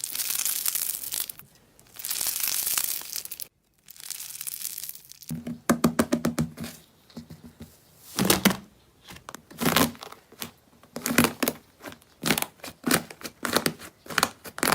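Slime being worked by hand: a tearing hiss for the first few seconds, then a run of sticky clicks and pops as it is squeezed and pressed.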